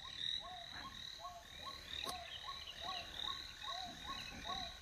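Frogs calling: a regular series of short croaks that rise and fall in pitch, about two a second, over a faint steady high-pitched tone.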